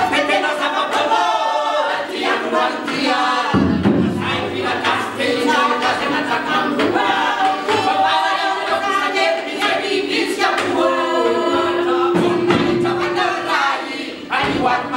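A Malagasy folk troupe singing together, men's and women's voices, with violin and a large drum accompanying.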